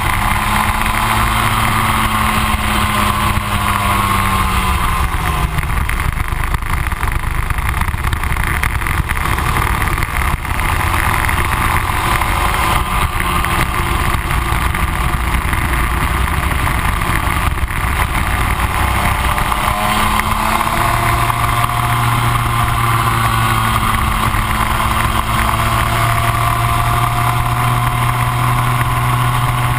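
Rotax Max 125 single-cylinder two-stroke kart engine running hard at track speed, heard onboard. Its pitch falls a few seconds in, stays lower through the middle, then climbs again about two-thirds of the way through and holds high.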